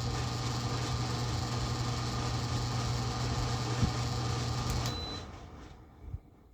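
Air conditioner running with a steady low hum and fan noise. About five seconds in it is switched off with a click and a short beep, and it winds down to near silence, with a soft thump near the end.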